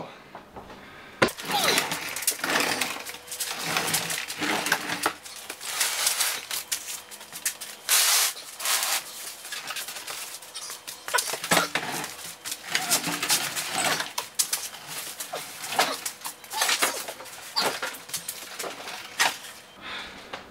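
A heavy cardboard box holding a 14-inch bandsaw being shoved and slid along a wooden workbench, giving irregular scraping and bumping. It starts about a second in and dies away near the end.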